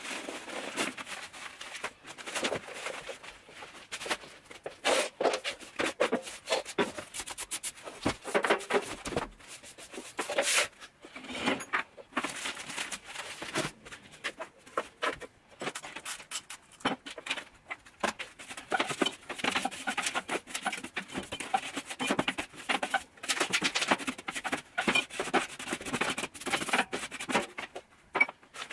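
Rustling, scraping and light clatter of papers and small objects being picked up and sorted by gloved hands: many short, irregular handling noises.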